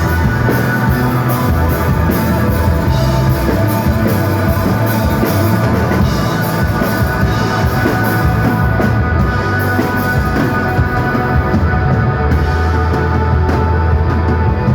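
A rock band playing loud psychedelic desert rock on electric guitar, bass and drums. The cymbals thin out about nine seconds in while the guitars and bass ring on.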